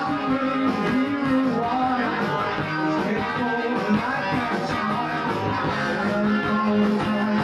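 Rock band playing live, electric guitar among the instruments, recorded through a video camera's built-in microphone.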